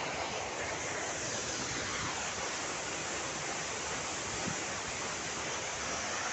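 Steady rushing of a waterfall and its stream, an even roar of falling water.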